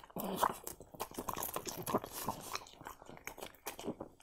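French bulldog chewing and crunching food taken from a hand, an irregular run of crunching bites.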